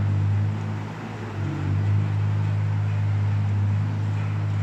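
A steady low machine hum, like a motor or fan running in a workshop, dipping briefly about a second in.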